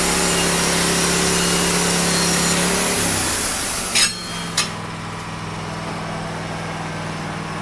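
Wood-Mizer LT15 band sawmill cutting through a log, a steady motor hum with the hiss of the blade in the wood. About three seconds in the motor's pitch drops and the cutting noise fades as the blade comes out of the cut, followed by two sharp clanks about half a second apart, then the motor runs on at a lower, steady speed.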